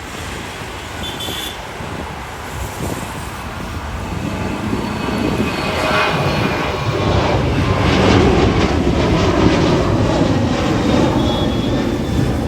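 Jet engines of a departing Boeing 737 at takeoff power, the rumble swelling as the airliner passes, loudest about eight seconds in and easing only slightly after.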